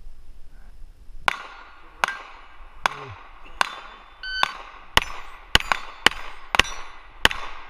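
Springfield Armory XDm 5.25 9mm pistol firing a rapid string of about ten shots at steel targets, starting about a second in and spaced roughly half a second apart. Short ringing tones from struck steel plates sound between some of the shots.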